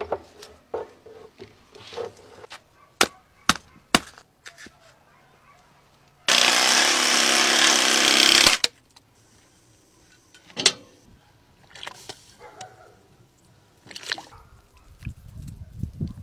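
A power saw cutting through a raw ostrich leg, a steady loud buzz lasting about two and a half seconds from about six seconds in. Scattered sharp knocks and clicks of butchering come before it, and a few low thuds near the end.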